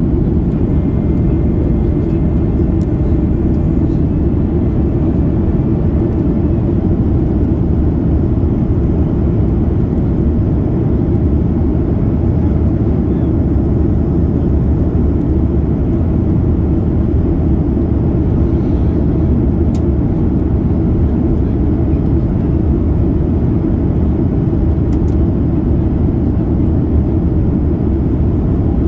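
Steady low rumble of airflow and engines heard inside the cabin of a Boeing 737 MAX 8 jet airliner in descent.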